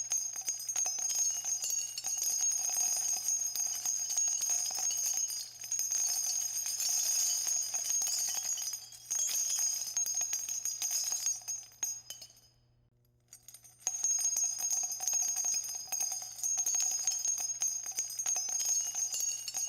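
Coin-shower sound effect: a dense, continuous clinking and jingling of many metal coins falling. It cuts out for about a second and a half around two-thirds of the way through, then starts again.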